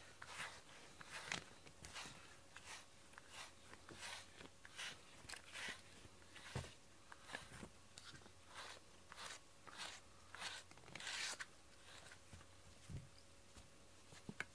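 Cat chewing and rubbing its face against a pink rubber cat grooming brush: soft, scratchy crunching strokes, about two a second, that die away near the end.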